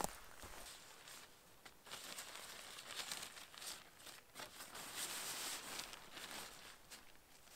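Dry rustling and crackling with many small snaps and crinkles, growing denser and louder toward the middle.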